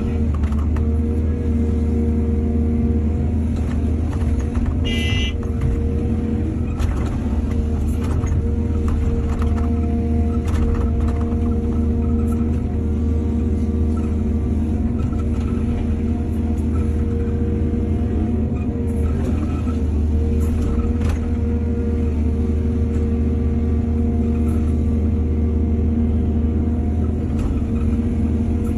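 Excavator's diesel engine running steadily, with scattered knocks and clanks and a brief high squeal about five seconds in.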